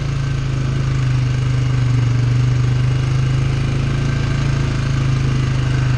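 ATV engine running steadily while the quad rides along a trail, heard from the rider's seat as an even, unchanging drone.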